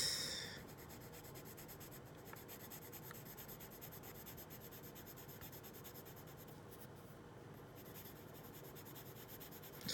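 Coloured pencil rubbing across drawing paper, a faint steady scratching, as the skin is shaded in a light base coat.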